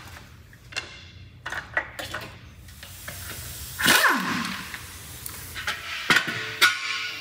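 Clicks and metallic knocks of wheel-removal work on a jacked-up Land Rover Discovery II, with a loud burst about four seconds in that trails off in a falling pitch.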